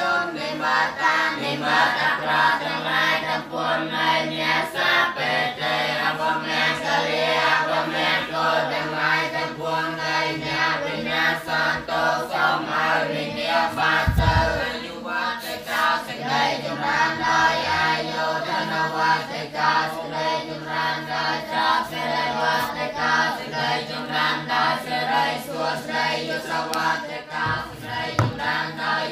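Many voices chanting together in unison in a Buddhist chant, with a steady low drone under the voices. There is a brief low thump about halfway through.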